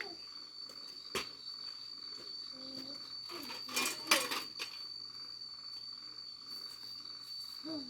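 Insects trilling in a steady, high, even tone, with a few sharp knocks, the loudest about four seconds in, and brief faint voice sounds.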